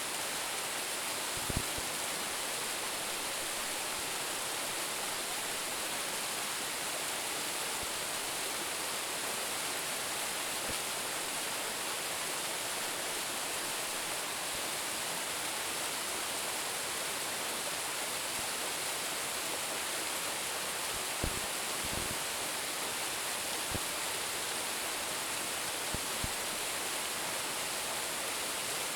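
Roumon Falls, a waterfall of about 10 m split into several streams, pouring in a steady, unbroken rush of water. A few brief low thuds sound near the start and again late on.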